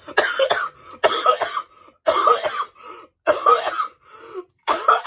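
A woman choking and coughing hard: five harsh coughs about a second apart.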